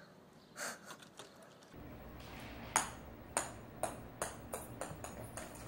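A small ball bouncing on a hard wooden floor: a first loud bounce, then a run of bounces that come quicker and fainter as it settles.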